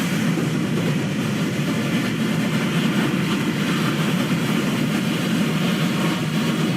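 A loud, steady, rumbling mechanical noise with no clear pitch, from a kaiju monster sound-effect track.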